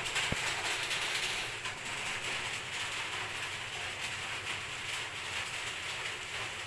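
Steady hiss of water draining from cooked sago pearls through a metal strainer into a stainless-steel sink, with a wooden spoon stirring the wet pearls in the second half.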